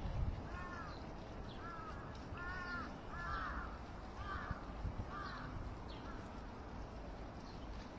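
A crow cawing six times in quick succession, each call short and arched. Faint high chirps of small birds are heard alongside.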